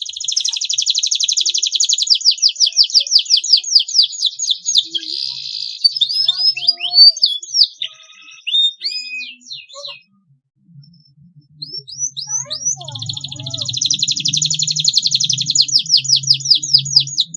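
Domestic canary singing: a long, rapid rolling trill, then a run of varied chirps and glides, a break of about a second, and another long rapid trill.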